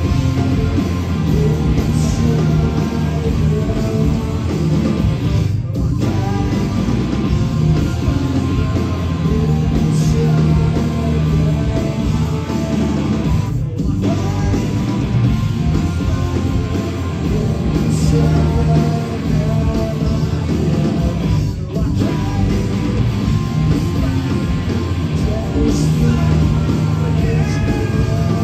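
Live rock band playing loud through the PA: electric guitars, bass and drums, heard from within the crowd. The song moves in a phrase that repeats about every eight seconds, each with a brief dip.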